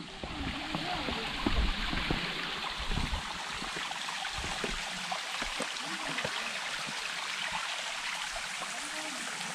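Stream flowing steadily: a continuous hiss of running water, with a few low thumps in the first three seconds.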